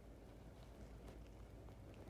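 Near silence: room tone with a few faint, scattered clicks of small plastic doll accessories being handled while packing a toy backpack.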